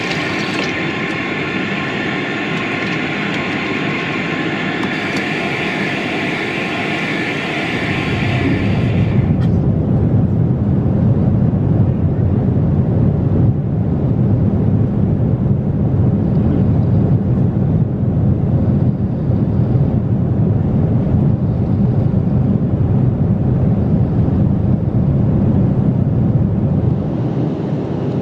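Water running from an airliner lavatory tap into the small basin over a steady hiss. About nine seconds in it gives way to the louder low drone of a Boeing 777-300ER cabin in flight.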